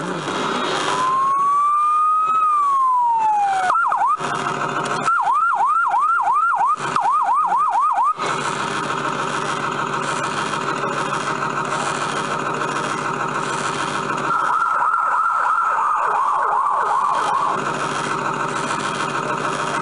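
Electronic fire-engine siren effects from a Falgas Fire Truck 4S kiddie ride's speaker. First comes one slow wail that rises and then falls. About four seconds in, a fast repeating yelp starts, about two a second. From about eight seconds in, a denser, steady layered electronic loop runs on.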